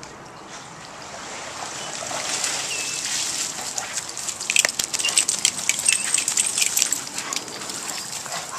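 Water splashing and spattering off a wet golden retriever as it leaves the swimming pool. The sound rises from a soft hiss to a busy patter of splatters about halfway through.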